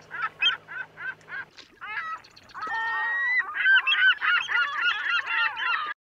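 A flock of birds calling: single calls at first, about three a second, then many overlapping calls from about two and a half seconds in.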